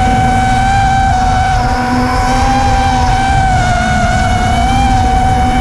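FPV quadcopter's brushless motors and propellers whining steadily in flight, the pitch wavering slightly with throttle, over a low rushing noise.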